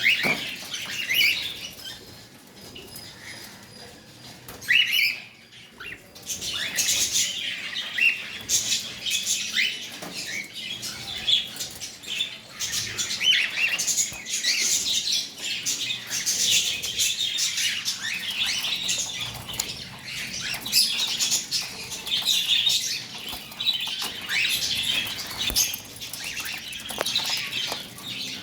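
Cockatiel chirping: many short, high chirps and calls in quick succession, briefly quieter about two to five seconds in, then busy again.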